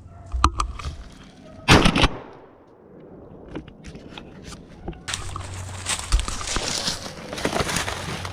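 A single loud shotgun shot about two seconds in, with a short echo fading after it, preceded by a couple of light clicks. From about five seconds on, footsteps crunch steadily through dry leaf litter.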